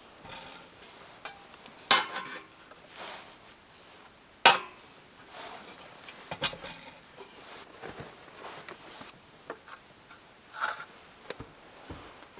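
Irregular clinks and knocks of hard objects being handled, like camp gear or cookware. The two loudest come about two seconds and four and a half seconds in.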